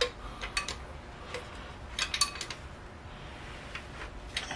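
Metal tools and fittings clicking and clinking against engine parts as fuel injector fittings are checked and tightened by hand. The sharp clicks come in small clusters, the loudest about two seconds in, with a quieter spell before a final click near the end.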